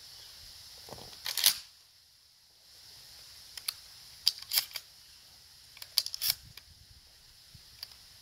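Sharp mechanical clicks and clacks in several short clusters, the loudest about a second and a half in, from a shotgun being handled before firing.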